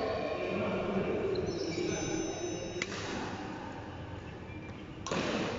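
Badminton hall between rallies: voices talking in the background, a few high squeaks of court shoes on the floor, and a single sharp click about three seconds in. A dense rush of noise comes in near the end.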